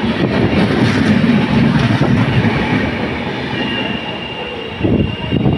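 Express train coaches passing close alongside on the next track: a steady rumble of wheels on rails with rail-joint clatter. A thin steady squeal comes in a little past halfway, and a few louder knocks come near the end as the last coach goes by.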